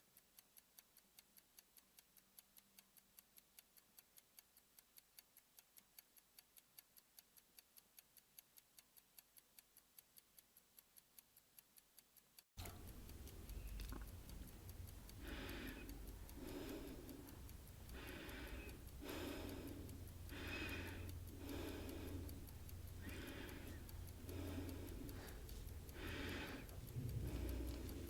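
A clock ticking steadily for a countdown: light, quick ticks at first, then about twelve seconds in it cuts to a louder, fuller tick-tock about once a second over a low hum.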